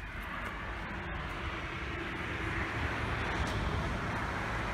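Road traffic going by, an even hiss of tyres and engines that swells a little in the middle.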